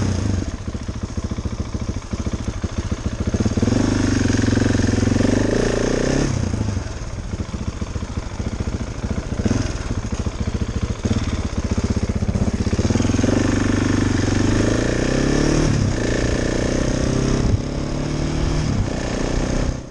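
KTM 690 Enduro R's single-cylinder engine running as the bike is ridden, its revs repeatedly rising and dropping as it accelerates and shifts.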